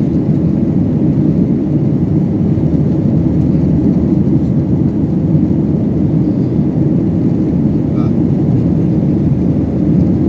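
Airliner cabin noise: a steady, loud, low drone of the engines and rushing air, heard from inside the plane in flight.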